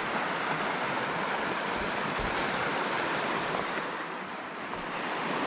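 Flowing river water, a steady rush, easing slightly about four seconds in.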